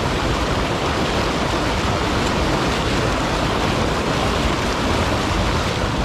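Steady rushing of river water, an even hiss without breaks.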